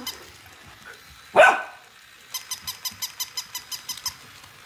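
A single loud dog bark, then a rapid, even run of squeaky pulses, about eight a second, from a plush battery-powered walking toy dog as a puppy mouths it.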